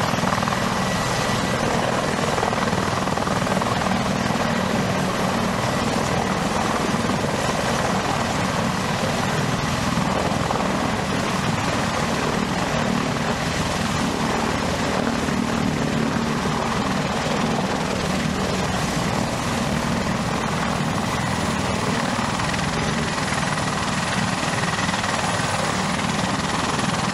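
Helicopter rotor and turbine engines running steadily: a continuous dense rush with a faint, steady high-pitched whine.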